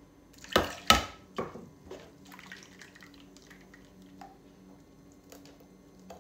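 Two loud knocks of a steel mixer-grinder jar being handled, about half a second apart near the start. Then faint clinks and drips as water is added to the jar and the thinned green masala is tipped out.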